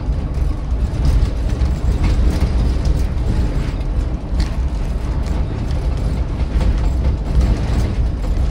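City bus under way, heard from inside: a steady low rumble of engine and road with frequent small rattles and clicks.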